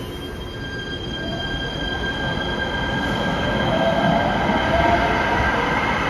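Light rail train moving through an underground station with a steady high-pitched squeal from the wheels on the rails over a running rumble. About four seconds in, a lower whine rises in pitch as the sound grows louder.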